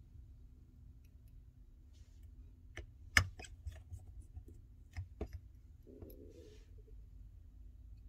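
Small clicks and taps of fingers and parts handling the inside of an opened iPhone 11, with the sharpest click a little after three seconds in and two more near five seconds, over a faint steady hum.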